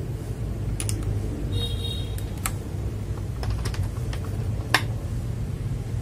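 Scattered sharp plastic clicks and taps of keycaps being handled and pushed onto the Kailh Box switches of an FL Esports MK870 mechanical keyboard, the sharpest click about three-quarters of the way through, over a steady low hum.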